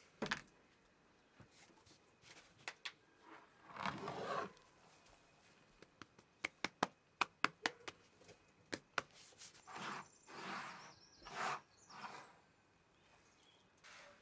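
Handling of a stone hand mill and rice grains: short rustling scrapes, with a quick run of sharp clicks and taps about halfway through.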